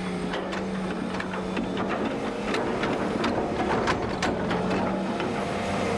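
Engine of a construction digger running at a steady pitch while it digs, with scattered clicks and clanks throughout.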